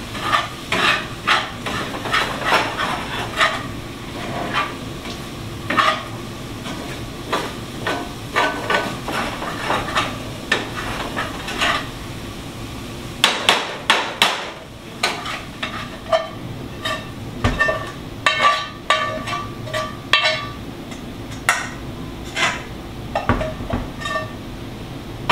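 A cooking utensil clinking and scraping against a frying pan, stirring a thickening flour-and-broth mix of onions and garlic, with sizzling underneath. The taps come irregularly, in quick runs. Near the end the pan is scraped out into a stockpot.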